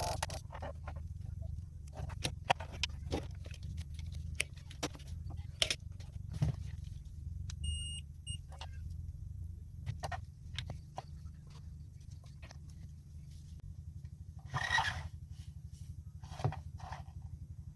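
Scattered clicks and taps of small parts being handled over a steady low hum, with a short high electronic beep about eight seconds in.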